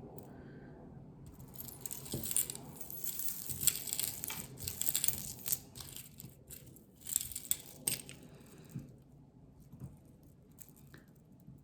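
Costume jewelry jingling and clinking as pieces are rummaged through and handled: a dense run of small metallic clicks and rattles from about a second in until about eight seconds, then only a few scattered clicks.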